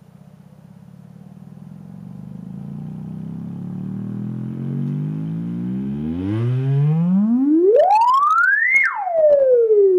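Woofer driver from an LG FE-286E micro hi-fi speaker, out of its cabinet, playing a sine sweep in free air for a bass excursion test. A buzzy low tone climbs steadily in pitch and loudness, rises fast to a high whistle about nine seconds in, then quickly glides back down.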